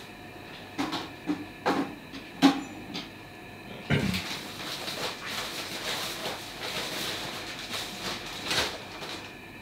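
Kitchen clatter: a few sharp knocks in the first couple of seconds, a heavier thump about four seconds in, then a stretch of busier clattering and rustling, over a steady hum.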